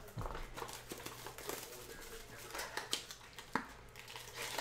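Clear plastic shrink wrap crinkling as it is peeled off a sealed box of trading cards, with light taps and knocks of the cardboard box being handled. One sharper tap comes about three and a half seconds in.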